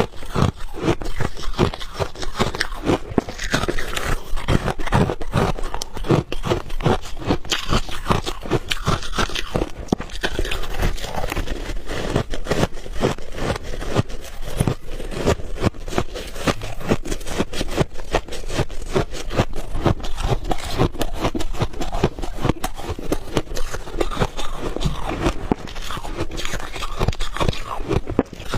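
Refrozen ice balls being bitten and chewed, a continuous run of crunching with many sharp cracks.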